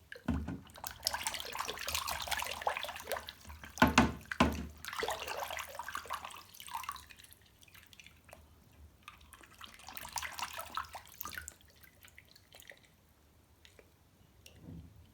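Water from a tap running and splashing in several bursts as toy cars are rinsed, with two sharp knocks about four seconds in and a softer thump near the end.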